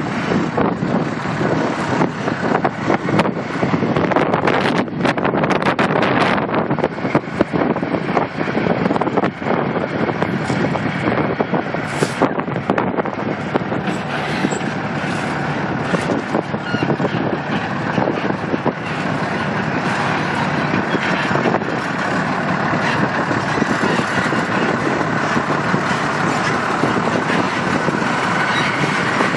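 Diesel engine of a semi-tractor running steadily at low speed as the truck and its box trailer back slowly around a curve.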